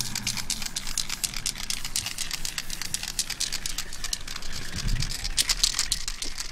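Aerosol spray paint can rattling: a fast, uneven run of sharp clicks, several a second, typical of the mixing ball knocking inside the can.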